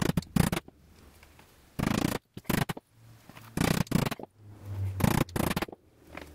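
A small hammer tapping nails through a thin fibreboard (HDF) panel into the edge of a particleboard frame: a series of sharp knocks in short clusters with pauses between.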